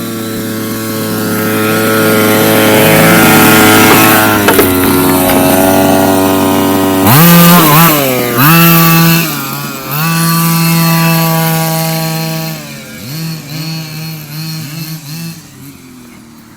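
Radio-controlled car's motor running hard at a steady high pitch, then dropping and revving up and down several times, fading toward the end.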